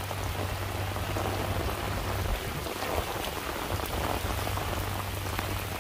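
Steady light rain falling, an even hiss with scattered drop ticks, over a steady low hum.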